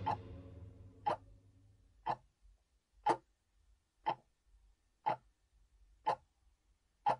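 A clock ticking steadily once a second: eight sharp, even ticks, while the tail of the film's music dies away at the very start.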